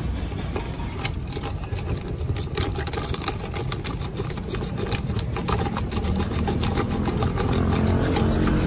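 Small handheld electric whisk running in a plastic jug of blue drink mix, over a steady low hum. From about two and a half seconds in, the whisk head ticks rapidly against the jug.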